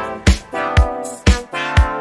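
Background music: upbeat funk-style track with a steady beat of about two strikes a second and held chords.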